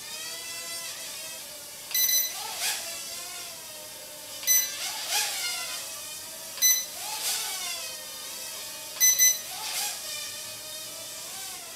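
Bayangtoys X9 micro quadcopter flying on its stock propellers: a steady, high motor-and-prop whine whose pitch wavers up and down with the throttle. Four times, roughly every two to two and a half seconds, short electronic beeps sound, each followed by a brief rise in the whine.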